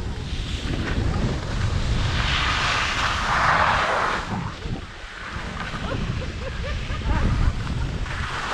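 Wind buffeting the action camera's microphone at speed, a steady low rumble, with a rushing hiss that swells about two to four seconds in.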